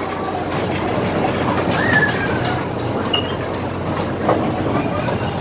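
Bumper cars running on the rink floor: a steady rumble with scattered clattering knocks, and a short high squeal about two seconds in.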